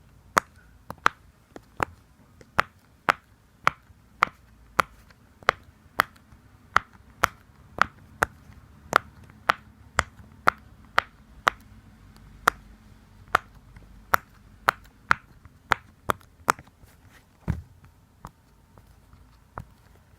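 Sharp taps on a Pop It silicone fidget toy, about two a second in an uneven rhythm, thinning out over the last few seconds.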